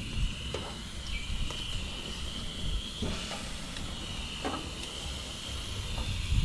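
A palometa being turned over on a gas grill: a few light clicks of the turner against the hot grate over a low burner rumble. A steady high insect drone runs throughout.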